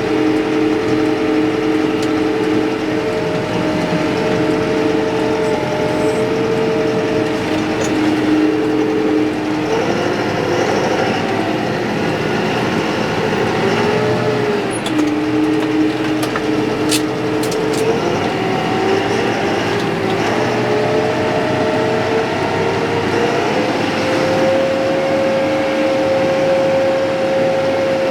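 A vehicle engine running continuously, its pitch stepping up and down several times as engine speed changes.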